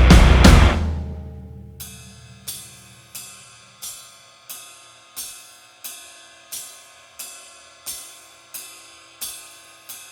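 Background music: a full beat with heavy bass breaks off under a second in and fades away. It gives way to a sparse struck note repeating evenly, about three every two seconds.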